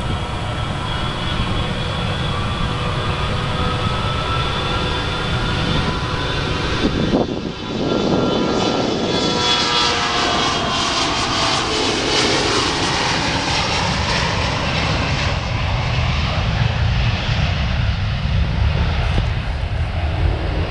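A Bombardier CRJ-900 regional jet's twin GE CF34 turbofans running at takeoff thrust as the jet rolls down the runway, passes and climbs away. A steady rumble carries a high engine whine that falls in pitch as the jet goes by. There is a brief thump about seven seconds in.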